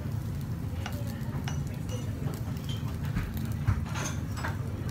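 Scattered light clicks and clinks of chopsticks against small ceramic dishes, the sharpest about three and a half seconds in, over a steady low hum of restaurant background noise.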